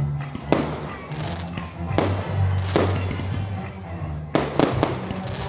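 Aerial firework shells bursting in a series of sharp bangs, about six in all, with three in quick succession near the end. Music plays underneath.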